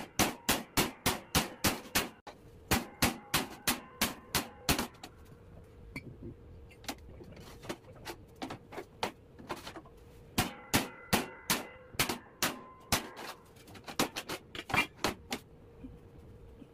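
Hand hammer striking a steel bar held against sheet steel, metal on metal with a ringing tone. There is a fast run of about four blows a second, then scattered blows, then a second quick run from about ten seconds in.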